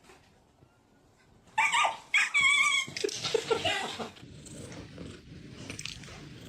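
A dog giving two loud, high-pitched, wavering cries about a second and a half in, followed by quieter yelps and whimpers.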